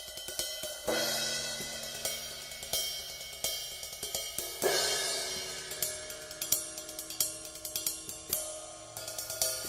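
Drum-led music: quick hi-hat ticks throughout, with a cymbal crash about a second in and another near the middle, over a few held pitched notes.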